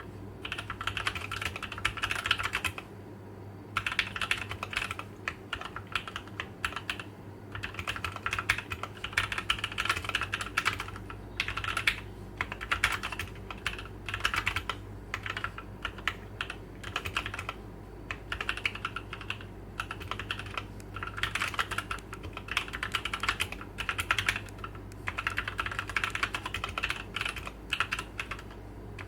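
Typing on a Drop + Tokyo TOKYO60 mechanical keyboard fitted with Gateron CAP V2 Milky Yellow linear switches: fast, continuous keystrokes, with a brief pause about three seconds in.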